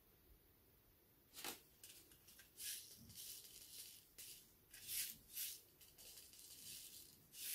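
Small seed packet rustling and crinkling as lettuce seeds are shaken and tipped out of it: a series of short faint rustles starting about a second and a half in, with a dry rattle of the seeds.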